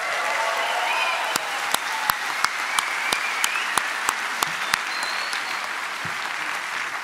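Large audience applauding. Over it, one set of sharp, close claps keeps a steady rhythm of about three a second, stopping about five seconds in.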